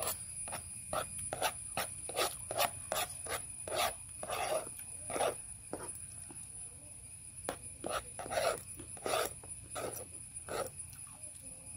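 Close-up eating sounds of a person chewing rice with the mouth, a run of short wet smacks several times a second that pauses briefly about six seconds in and then resumes.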